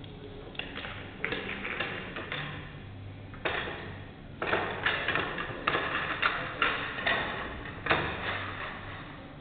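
Pool balls clacking and rattling against each other as they are gathered into a rack and packed tight on the table: a series of clattering bursts of clicks, the heavier ones in the second half.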